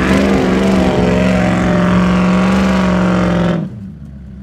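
Land Rover Discovery 2's V8 engine revved hard and held at high, steady revs while driving through mud. About three and a half seconds in the sound drops suddenly to a lower engine rumble.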